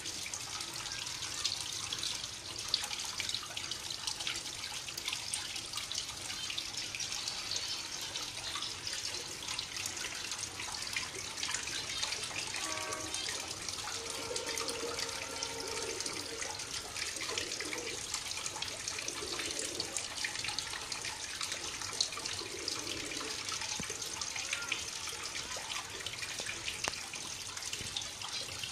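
Water from a small homemade stone waterfall trickling over rocks and splashing into a shallow pool: a steady, hissy splashing with many small drips.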